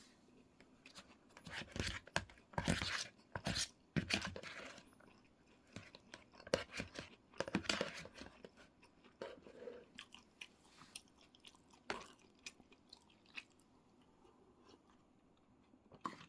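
A person eating close to the microphone: biting and chewing food, with clusters of mouth clicks and smacks in the first half and scattered softer clicks after.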